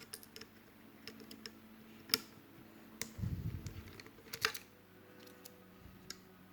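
Scattered light clicks and taps of a screwdriver and small metal parts on an airsoft V2 gearbox shell as its screws are undone, with a brief low handling rumble about three seconds in.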